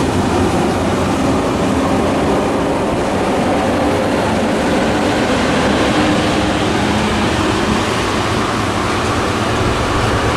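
A TER passenger train of Corail coaches rolling past close by, making a loud, steady rumble of wheels on rail.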